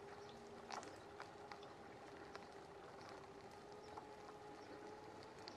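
Near silence: a faint, steady distant hum that sinks slightly in pitch, with scattered light taps of footsteps.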